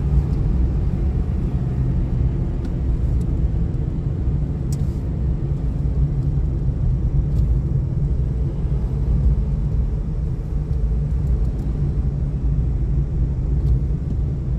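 Steady low rumble of a car on the move: engine and road noise with no sudden changes, and a few faint clicks.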